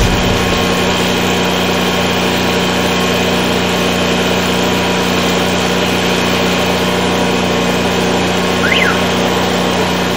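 Engine-driven high-pressure drain-jetting machine running steadily with a constant hum. A brief high chirp sounds near the end.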